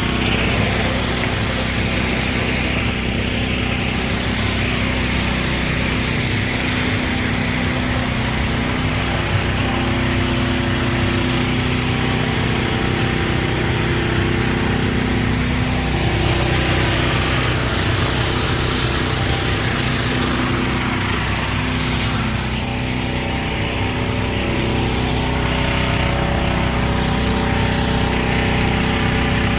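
Small engine running steadily under load, with a steady hiss over it, its pitch wavering slightly now and then.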